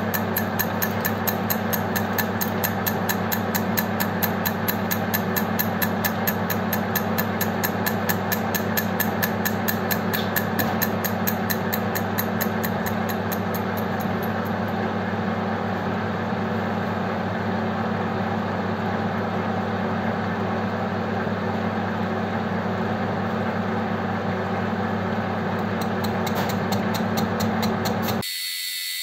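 Metal lathe running and turning aluminium, the tool taking an interrupted cut, with a steady motor hum and a fast, even ticking through the first half. The sound cuts off abruptly near the end.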